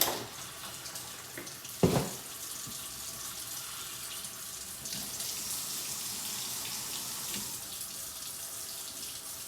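Water running steadily from a faucet into the sink, flushing a freshly installed reverse osmosis system whose new carbon filter has not yet been rinsed out. A single sharp knock sounds about two seconds in.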